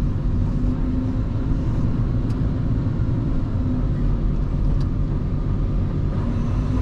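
Heavy truck's engine running steadily as it drives, heard from inside the cab as an even low drone with a faint steady hum above it.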